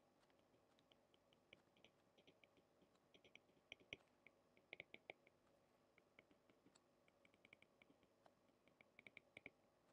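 Faint, irregular clicks and taps of a stylus on a tablet screen during handwriting, often coming in quick little clusters.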